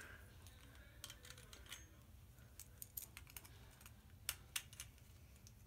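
Faint, scattered small clicks of plastic Beyblade spinning-top parts being handled and fitted together by hand.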